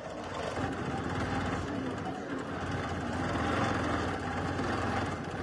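Bernina Q20 longarm quilting machine stitching at a steady speed: a fast run of needle strokes over the motor's hum, building up in the first half second and then holding.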